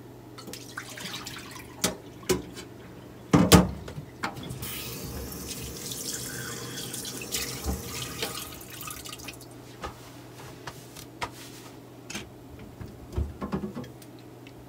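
Water sloshing and dripping in a stainless steel pot as pork belly pieces are set into it by hand, with a few knocks, the loudest about three and a half seconds in. Several seconds of running water follow in the middle, then more small knocks and drips near the end.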